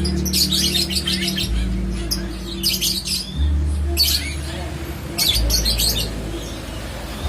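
Caged birds in a bird shop chirping in shrill bursts, four or five times, over a low steady hum.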